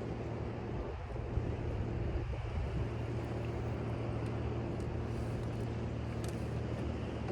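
A steady low engine drone with an even hum, over a constant hiss of background noise.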